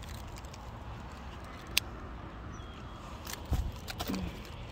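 Steady low outdoor background rumble, with one sharp click about two seconds in and a few soft knocks and thumps near the end.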